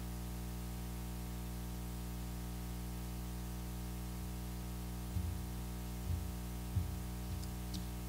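Steady electrical hum from the church's sound system, with a few short low thumps in the last three seconds as footsteps reach the microphone-fitted lectern.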